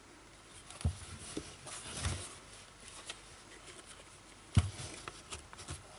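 Kodak No. 2 Cartridge Hawkeye Model C box camera, a leatherette-covered cardboard box, being handled: a few light knocks and clicks as its metal side clips are closed, the sharpest about four and a half seconds in.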